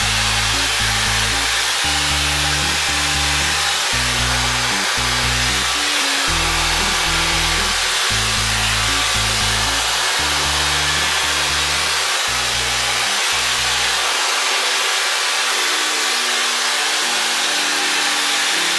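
Shark hair dryer blowing steadily with an even rush of air. Under it runs music with a stepping bass line. The bass drops out about fourteen seconds in, and higher notes carry on.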